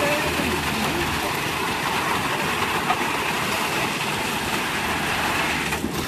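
Concrete mixer and hoist machinery running steadily with a rattling clatter, while wet concrete is tipped from the hoist bucket into a cart. A knock comes near the end.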